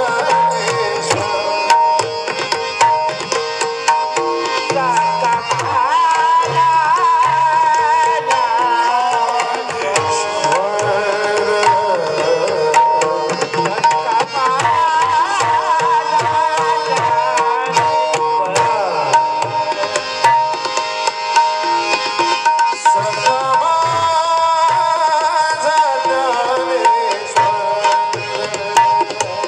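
Marathi devotional bhajan music: steady tabla drumming under held tones, with a melody wavering through the middle.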